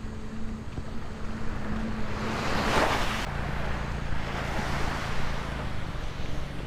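Sea waves washing onto a rocky shore, with wind rumbling on the microphone. One wash swells up about two seconds in and stops abruptly, and a second, softer one follows.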